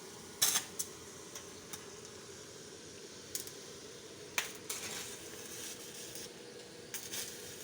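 Scattered sharp metallic clinks and knocks of work on a steel pipe, a few irregular strikes over a steady low hum; the loudest come about half a second in and a little past four seconds.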